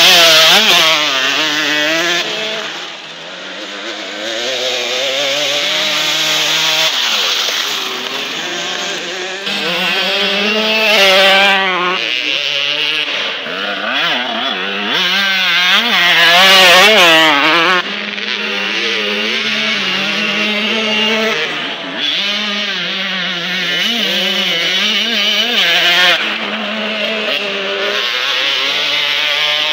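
Motocross dirt bike engines revving under throttle, the pitch climbing and dropping again and again as the bikes are ridden hard on the track.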